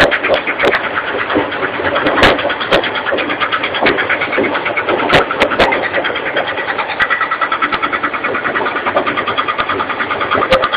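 EBZ75 boom-type roadheader cutting into a soil and rock face: its rotating cutting head grinds with a fast, rhythmic rattle over the machine's running motor, with a few sharp cracks along the way.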